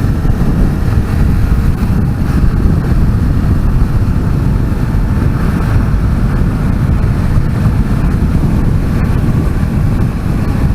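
Motorcycle riding along, heard from the rider's own microphone: steady wind rush over the mic with engine and road noise underneath.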